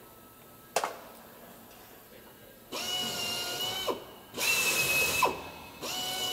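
A hand-held power drill run in three short bursts against the aircraft's aluminium skin panel, drilling holes for the rivets. Each burst is a steady whine that stops abruptly. A single sharp click comes just before them.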